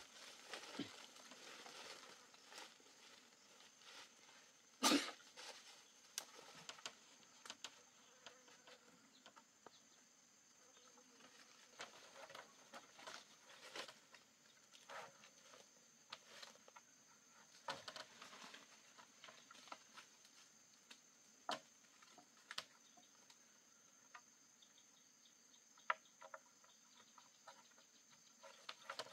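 Faint, steady, high-pitched drone of insects, with scattered rustling and light clicks from someone moving and working in leafy undergrowth. One sharp knock about five seconds in is the loudest sound.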